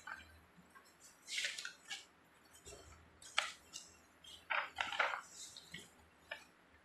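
Printed paper sheets being turned and handled, rustling in a series of short bursts.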